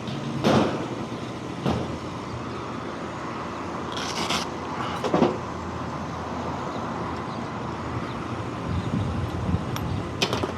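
A steady machinery hum, broken by a few knocks and clunks of tools being handled and a short hiss about four seconds in. Near the end something is dropped with a clatter.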